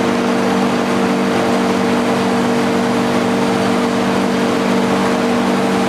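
Bingsu snowflake ice machine running with a steady hum, its chilled roller turning as flakes of the frozen mix start coming off it.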